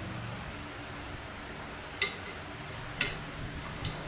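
Hard metal objects clinking together: two sharp, ringing strikes about a second apart, then a fainter tap near the end, over a low steady hum.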